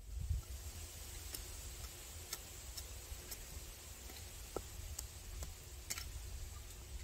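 Wind rumbling on the microphone, with scattered faint, sharp ticks.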